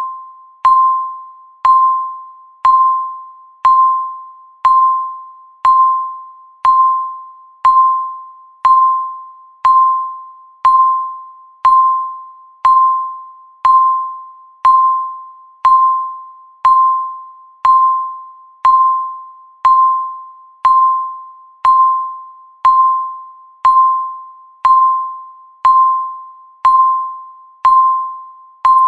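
Countdown timer's tick sound: a short ringing beep repeating evenly once a second, each one fading away before the next.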